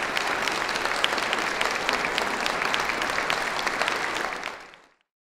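Audience applauding, a dense patter of claps that fades out near the end.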